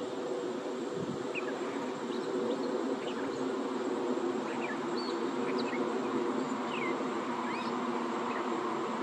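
A steady low buzzing drone, with many faint, short high chirps scattered through it.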